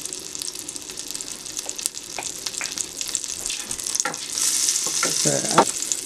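Melted butter and olive oil sizzling and crackling in a hot stainless steel pot, the sizzle growing louder a little past the middle as a wooden spoon stirs it. A short rising squeak comes near the end.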